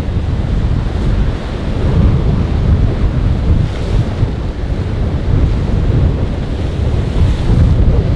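Strong wind buffeting the microphone with a heavy low rumble, over the rush of rough surf breaking against a rock jetty.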